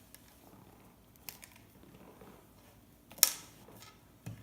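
Small cutters working two gold-plated pins off a tiny motor: a few faint ticks, then one sharp click a little after three seconds in and a smaller knock near the end.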